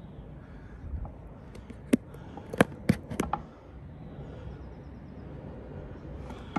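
Street ambience through an open window, with a handful of sharp clicks or knocks, four in quick succession, about two to three and a half seconds in.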